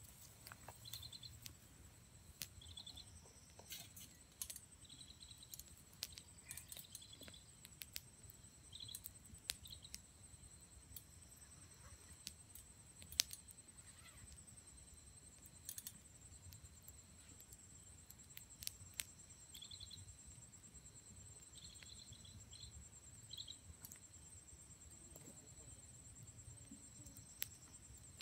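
Wood campfire crackling with scattered sharp pops, over a steady high-pitched insect trill and bursts of short chirping calls.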